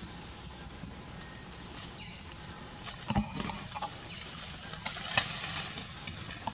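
A macaque climbing through a tree: leaves rustling and branches knocking in a run of sharp clicks from about three seconds in, over a steady forest background hiss.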